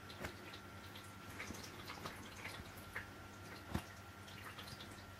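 Faint soft rustling and scattered small ticks as hands squeeze and handle a large homemade watermelon squishy toy, with one slightly louder tap nearly four seconds in, over a faint steady hum.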